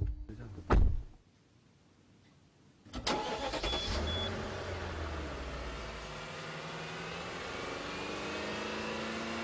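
A single loud thump about a second in. Then, about three seconds in, the Hongqi V12 engine starts abruptly and settles into a steady, even idle, its pitch sagging slightly and then creeping up.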